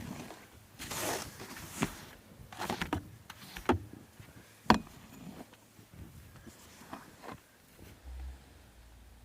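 Footsteps in snow, about one step a second, fading out after about seven seconds.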